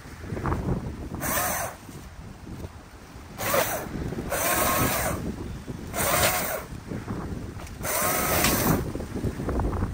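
Chainsaw revving in five short bursts, each rising and falling in pitch, as it cuts palm fronds.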